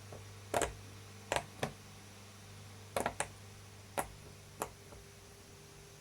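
Silicone pop-it fidget toy having its bubbles pressed through one by one: a string of about seven soft, separate pops at an uneven pace.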